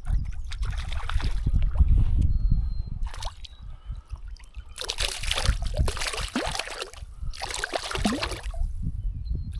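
Water splashing and sloshing in several bursts, with a low wind rumble on the microphone.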